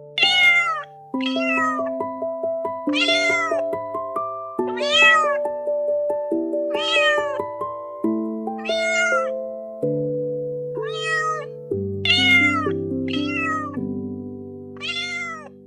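A cat meowing about ten times, each meow a short call that rises and falls in pitch, over background music of held notes.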